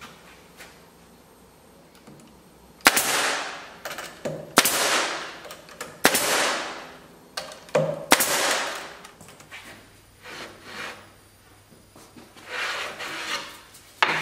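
Pneumatic pin nailer firing four times, about one and a half to two seconds apart, driving pins into plywood; each shot is a sharp crack followed by a short hiss.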